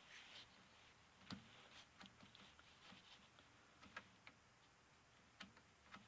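Near silence with about ten faint, irregular clicks and taps.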